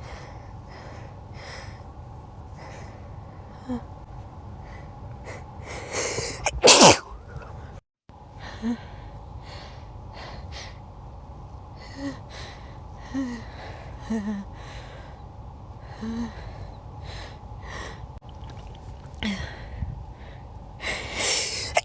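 A person sneezing with build-ups: short catching breaths and gasps about a second apart lead into a loud sneeze about seven seconds in, then more catches and a second build-up near the end that breaks into another loud sneeze.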